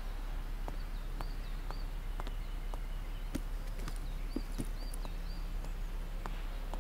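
Rural outdoor ambience with a steady low hum: a small bird chirps in short repeated hooked notes in a few quick groups, and a few scattered light knocks sound through it.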